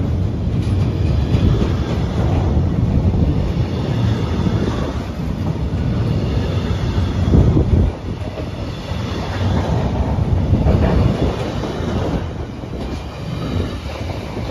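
A freight train of loaded flat wagons passing close by: a loud, continuous rumble with the clatter of wheels over the rails, dipping suddenly about eight seconds in.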